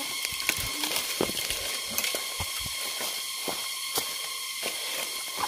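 Dry bamboo leaves, twigs and stalks rustling and snapping as someone moves through a bamboo thicket, with a dozen or so short clicks and knocks over a steady high hiss.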